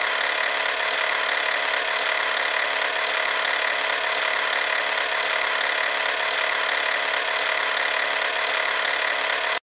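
Old film projector sound effect: a steady mechanical whir and hiss that cuts off suddenly near the end.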